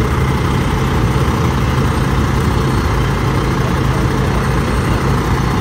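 Fire engine's diesel engine idling steadily with a low, constant rumble.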